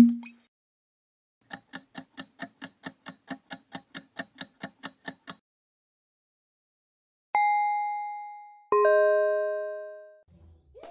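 Quiz sound effects: a countdown clock ticks about five times a second for roughly four seconds. After a pause comes a two-note answer chime, the second note lower and richer, each ringing out and fading.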